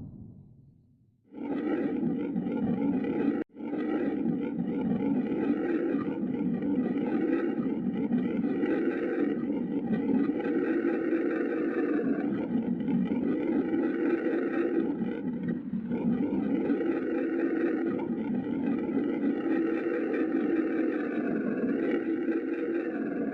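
Designed monster roar sound effect for a fish monster: one long, wavering, pitched roar with many layered tones that starts about a second in, breaks off sharply for an instant a couple of seconds later, then runs on unbroken. At the very start, the tail of an earlier low rumble fades out.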